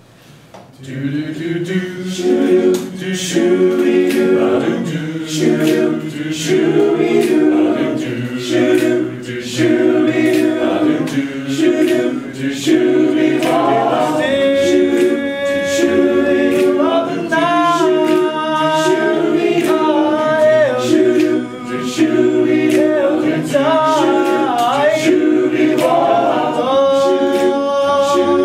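Barbershop chorus of men singing a cappella in close harmony, beginning about a second in. The lower voices sing short rhythmic syllables, and about halfway a higher, longer-held melody line comes in above them.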